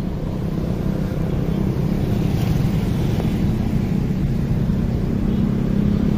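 City street traffic: the engines of passing vehicles making a steady low rumble that grows slowly louder.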